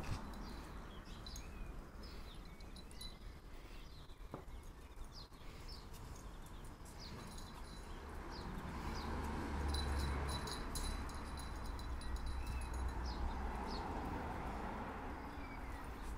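Small dogs scuffling on paving stones as they wrestle, with small birds chirping repeatedly in the background over a low rumble that swells about ten seconds in.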